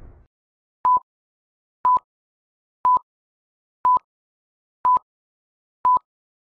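Six short electronic beeps at one steady mid pitch, evenly spaced one a second, with silence between them.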